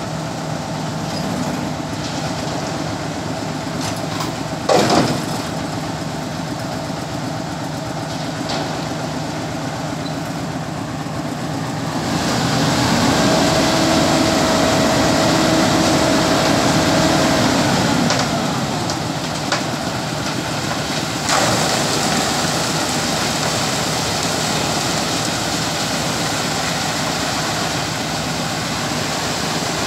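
Diesel engines of a concrete mixer truck and a small site dumper running steadily, with a single knock about five seconds in. From about twelve seconds in a louder rushing noise sets in, with a steady whine for a few seconds, as the mixer discharges wet concrete down its chute into the dumper's skip.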